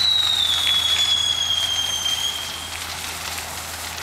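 Whistling firework screaming a long shrill whistle that slowly falls in pitch and cuts out about two and a half seconds in, with scattered crackles.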